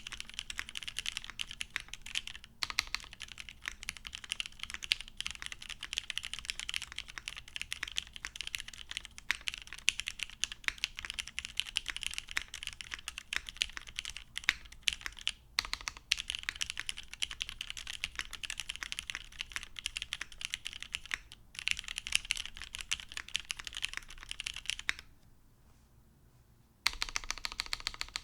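Continuous fast typing on a top-mount mechanical keyboard with lubed vintage Cherry MX Black linear switches on an aluminum plate, no foam, and GMK keycaps: a dense run of key clacks. The typing stops for about two seconds near the end, then starts again.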